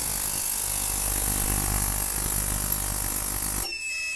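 Digital ultrasonic cleaner running, a steady hiss and buzz from the tank. About three and a half seconds in it cuts out and the cleaner's electronic beeper sounds a steady tone, signalling the end of its timed cleaning cycle.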